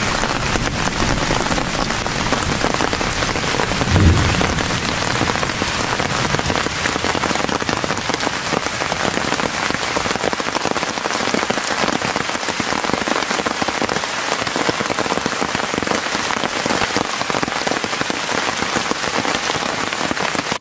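Steady rain falling on a tent's tarp, a dense even patter, with one short low thump about four seconds in.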